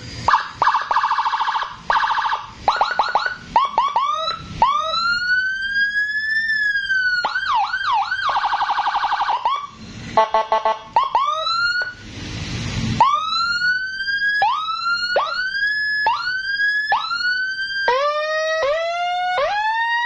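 Custom Whelen-style HHS 24 electronic police siren, 60 watts through a horn speaker, cycling through its tones: fast yelping chirps, a warbling stretch, one slow wail rising and falling, a short hiss-like blast about halfway, then a run of rising whoops near the end.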